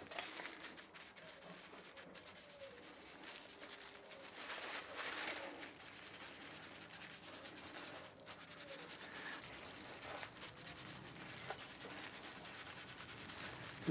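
Faint rubbing as beeswax is brushed into a twisted wooden walking stick, the strokes a little louder about four seconds in.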